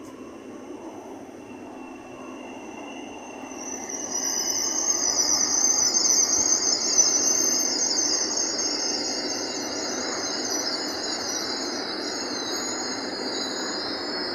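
LNER Class 801 Azuma electric train running past close by: a steady rumble of wheels on rail that swells about three and a half seconds in, with a high wavering squeal from the wheels coming in at the same time and loudest in the middle.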